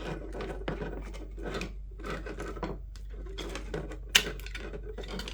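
Rustling and scraping of plastic headset parts as a cut wire is worked out of the housing, with small clicks throughout and one sharp click about four seconds in.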